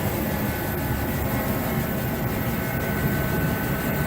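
Garage heater running steadily: an even rushing noise with a faint high whine.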